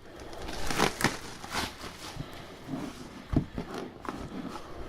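A cardboard box and its packaging being handled and opened by hand: irregular crinkling, rustling and short scrapes and taps.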